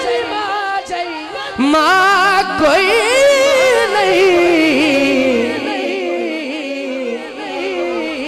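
Solo male voice singing a drawn-out, ornamented line of a Punjabi devotional kalam (naat) through a PA, with heavy vibrato. The melody climbs about two seconds in and then descends slowly through long held notes.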